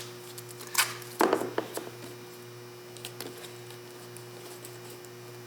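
Wiring harness and duct tape being handled on a car door panel: a short rasp a little under a second in, a knock about a second in followed by a few light clicks, then a faint tick near the middle, over a steady low hum.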